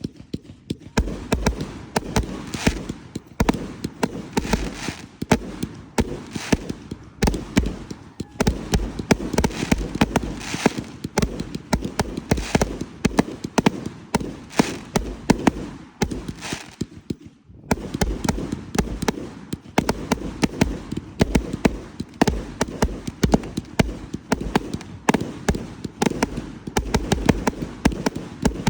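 Fireworks display: a dense, continuous barrage of bangs and crackling pops that breaks off for a moment a little past halfway, then resumes just as thickly.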